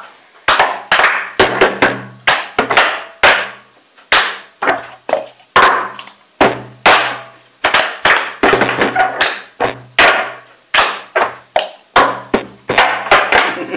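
Plastic cups knocked down onto a cloth-covered table and picked up again, mixed with hand claps, in a cup-passing rhythm game: an uneven beat of sharp knocks and claps, about two a second.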